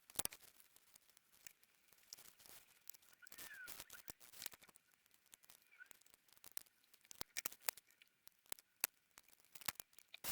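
Faint, irregular clicks, taps and light scrapes of small plastic parts being handled as a Samsung D600 mobile phone is cleaned and reassembled, coming more often near the end.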